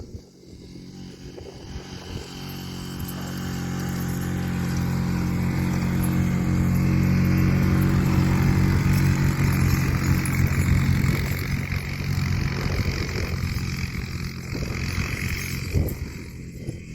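Quad bike engine running as it drives up and down, coming closer and growing louder, loudest about halfway through, then moving away and fading.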